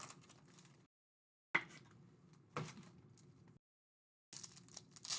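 Quiet handling of trading-card packs and cards: faint rustling over a low room hum, with two light taps about a second and a half in and near the middle. The audio cuts to dead silence twice, a noise gate closing between sounds.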